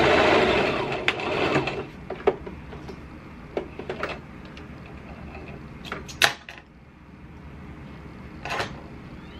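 Electric sewing machine stitching, stopping about two seconds in. Then scattered clicks and fabric handling as the piece is drawn out from under the presser foot, with one sharp snap about six seconds in.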